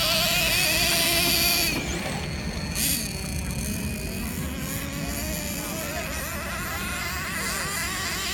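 Radio-controlled model motorcycle's motor whining, its pitch wavering up and down continuously as the throttle is worked, over a steady low rumble of outdoor noise.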